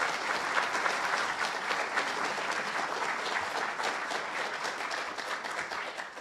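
Audience applauding: many hands clapping at once in a dense patter that slowly tapers off near the end.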